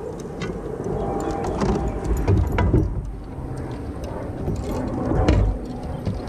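Scattered clicks and knocks of gear being handled in a fishing kayak, over a steady low rumble, with a few louder thumps around the middle and about five seconds in.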